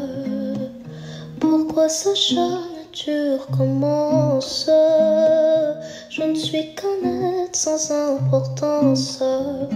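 Background music led by a plucked acoustic guitar over a repeating bass line.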